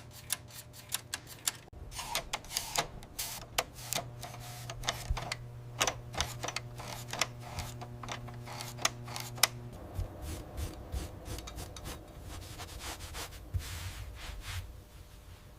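Restored manual typewriter being typed on: sharp, irregular clicks of the keys striking, over a low steady hum that stops about ten seconds in, after which the clicks go on more softly.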